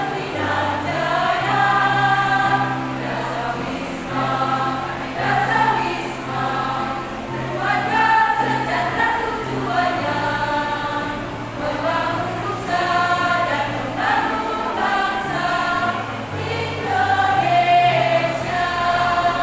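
Women's choir singing over a low accompaniment of held bass notes that change every second or two.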